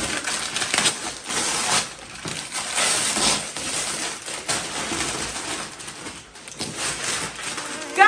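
Packaging being handled during an unboxing: irregular crinkling and rustling of wrapping and cardboard in uneven surges.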